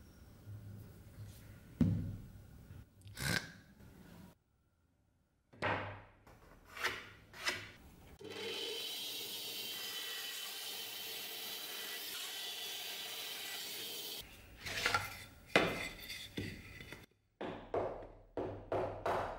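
A band saw running steadily through a strip of wood for about six seconds. Before it come scattered knocks and short scraping strokes of tool work, and after it quick rubbing strokes, about two a second near the end.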